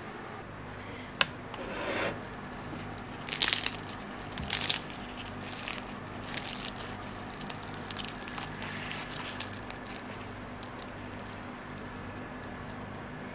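Flaky baked puff-pastry crust crackling and crunching as hands squeeze and tear open a cheese-and-potato pie: a run of short crackles, loudest about three and a half seconds in, thinning out after about nine seconds. A faint steady hum lies underneath.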